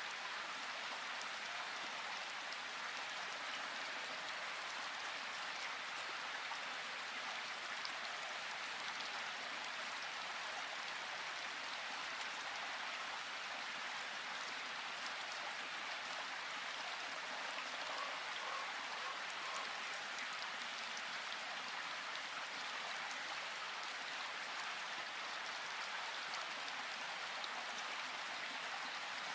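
Steady rush of flowing river water, an even splashing hiss without breaks.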